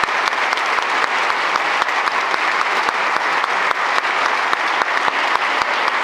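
An audience of people clapping: steady, continuous applause.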